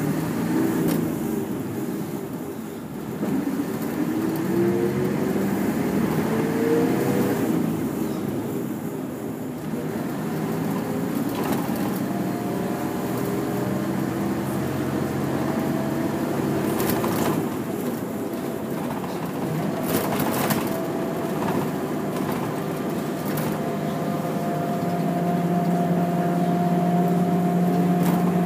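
Route bus's diesel engine heard from inside the bus: it pulls away with the engine note rising, changes gear about seven seconds in, then runs steadily. A few sharp clicks come about two-thirds of the way through.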